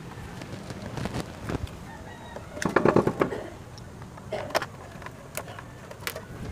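Light clicks and taps of a screwdriver driving screws into a scooter's plastic headlight cover. A chicken calls loudly about three seconds in, and more briefly a second later.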